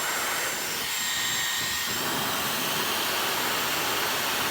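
Dyson Supersonic hair dryer running on a high setting: a steady rush of air with a thin high whine over the first two seconds.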